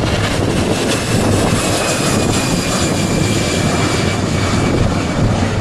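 Jet airliner's engines running at high power as it goes around from an aborted landing: a loud, steady rush with a faint whine that slowly falls in pitch.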